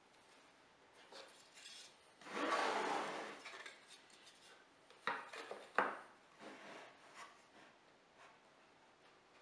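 Plywood scraping across plywood for about a second as the spline-jig cradle is slid onto the sled, then two sharp wooden knocks as it is set down, followed by a few light taps while it is shuffled into position.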